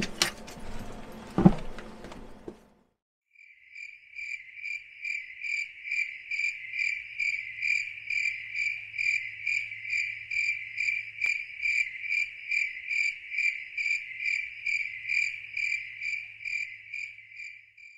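A rope dog leash and its metal clip jangle, with one sharp knock, then the sound cuts off. After a brief silence a cricket chirps steadily, about two to three even, high chirps a second.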